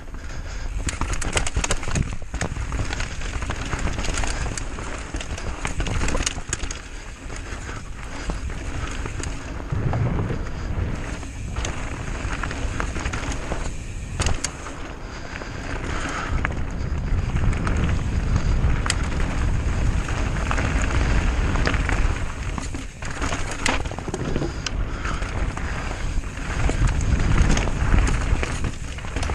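Mountain bike rolling fast down a dirt trail: tyres crunching over soil, roots and stones, with the frame and chain rattling in many short clicks over the bumps and a steady low rumble underneath.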